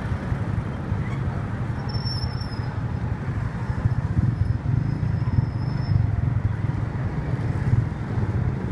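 Diesel engine of a Ceres Liner bus running as the bus pulls slowly past, a low, muffled rumble that grows louder about halfway through as it comes close.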